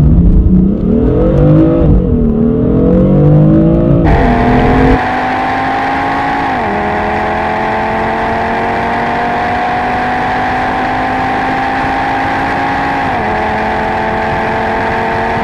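Full-throttle acceleration, first the BMW M4's twin-turbo straight-six revving hard with an upshift about two seconds in. Then, four to five seconds in, the sound changes to the Audi RS3's turbocharged five-cylinder, which is quieter and steadier. Its revs climb slowly, with upshifts dropping the pitch around six and a half and again around thirteen seconds in.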